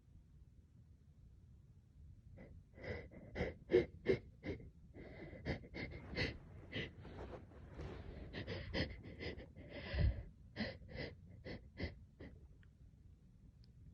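A person's rapid run of short, catching breaths, about two or three a second, with a faint wheeze: hitching, sniffling breathing through a congested, running nose during an allergic reaction to a cat.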